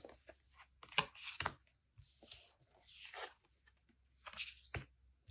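Tarot cards being lifted off two stacked decks and handled: a few light clicks of card stock and brief brushing slides of cards against each other.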